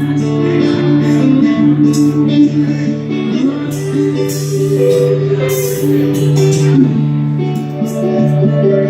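A band playing, led by guitar over a steady low bass line, with a few bright crashes high up partway through.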